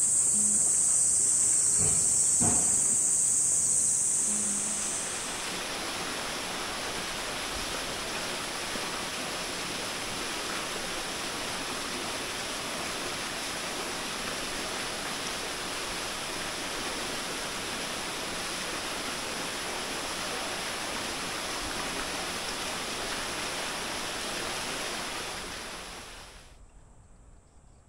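Shallow stream water running steadily over a concrete channel under a bridge: a steady rushing hiss. It comes in after about four seconds of high insect shrilling with a few light knocks, and fades out near the end.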